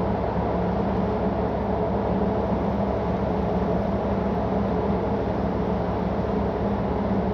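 Steady low drone of a tanker under way: engine and machinery hum with a constant low tone, unchanging throughout.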